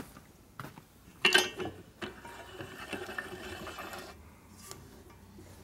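A sharp metallic clatter about a second in, then about two seconds of steady rattling as a steel shaft is turned by hand in the main bearing bore of an ironhead Sportster crankcase, during a trial fit of the bearing that is still loose.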